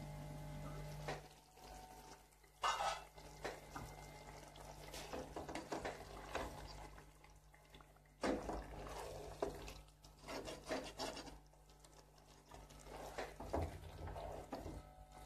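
A spatula stirring and scraping chicken pieces in thick tomato masala in a karahi, in uneven bunches of scrapes and rubs. The masala is being fried down after two minutes covered.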